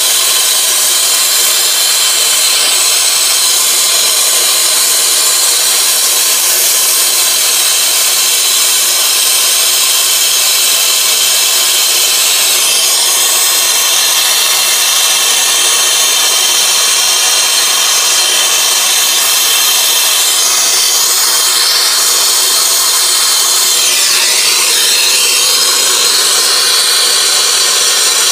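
Brazing torch flame hissing steadily while it heats a copper line joint on an air-conditioner A coil for silver soldering.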